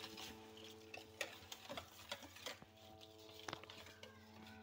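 Faint, scattered clicks of a spoon against a mixing bowl as runny batter is stirred, over a faint steady hum.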